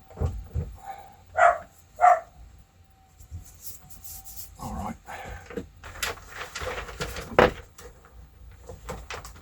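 A dog barks twice in quick succession about a second and a half in, followed by a faint, thin whine. Irregular rustling and handling noises follow in the second half.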